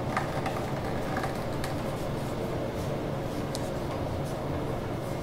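A steady low hum of room noise, with a few faint ticks and light rustles as a piece of leather is handled and flattened on a plastic cutting mat.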